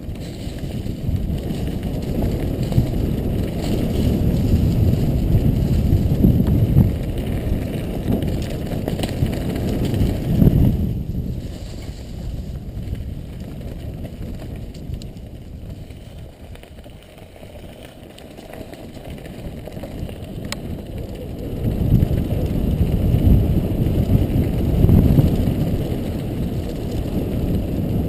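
Wind rushing over a helmet camera's microphone while a mountain bike rolls down a dry dirt trail scattered with leaves, the tyres running over the loose ground. The noise is loud at first, eases off about halfway through, and rises again near the end as speed picks up.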